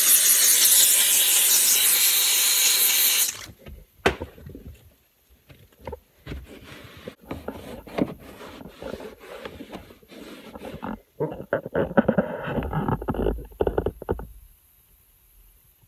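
McCulloch steam cleaner's wand blowing a jet of steam with a loud, steady hiss that cuts off sharply about three seconds in. Then a microfiber towel rubs and scrubs the steamed cloth headliner in irregular strokes, with scuffs and knocks, stopping shortly before the end.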